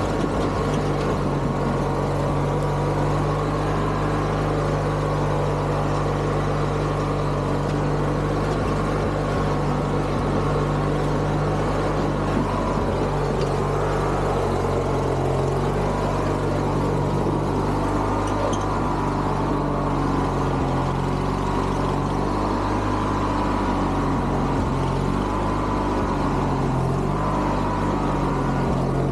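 Garden tractor engine running steadily, with its pitch wavering slightly in the second half.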